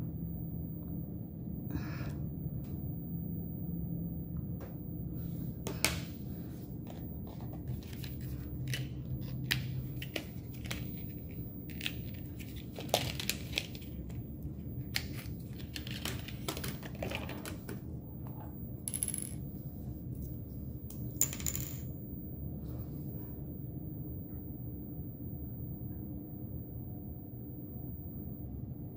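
Scattered small clicks and taps of makeup containers and tools being handled, with two bright metallic clinks about two-thirds of the way through, over a steady low room hum.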